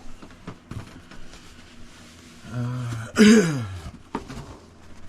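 A person's wordless vocal sound: a short low hum, then a loud groan falling in pitch, with light clicks of small parts being handled.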